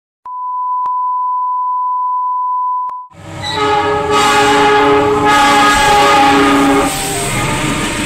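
A steady electronic beep tone for about three seconds, then a diesel locomotive's multi-note horn sounding a long chord as the train passes close, its pitch dropping slightly near the end.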